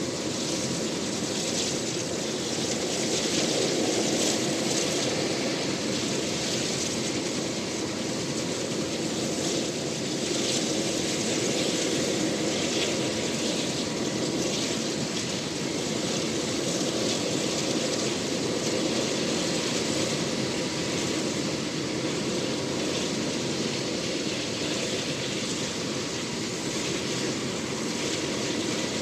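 UH-60 Black Hawk helicopter running on the ground with its main rotor turning: a steady drone of rotor and twin T700 turboshaft engines, with a thin, steady high whine.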